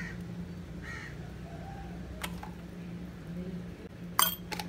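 A crow caws twice in the first second or so over a low steady hum, and a metal spoon clinks sharply against a glass jar of tea leaves near the end.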